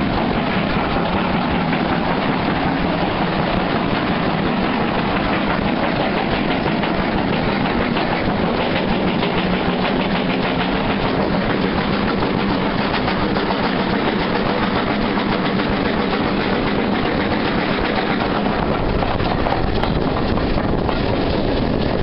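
Steam-hauled passenger train heard from a carriage window while running: a steady rumble of wheels on the rails with clickety-clack over the joints, and the locomotive's exhaust working ahead.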